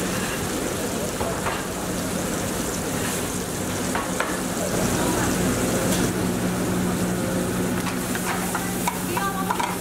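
Shrimp and mushrooms sizzling in hot oil in an aluminium sauté pan over a gas burner, over a steady low hum. Near the end a metal spatula stirs and scrapes the pan.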